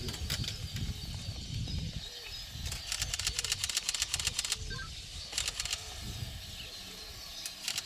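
Camera shutter firing in rapid continuous bursts: a long burst of about two seconds, a short one about a second later, and another starting near the end.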